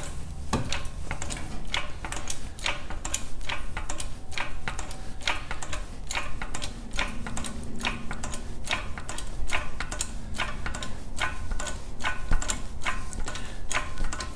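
MoJack HDL 500 tractor lift being raised by pumping its bottle-jack handle: a steady run of sharp metallic clicks, about two to three a second, as the lift climbs.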